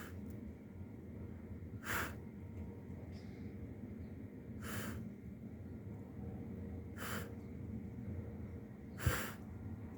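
Breathing close to the microphone: short breathy exhales about every two to two and a half seconds, over a faint steady low hum.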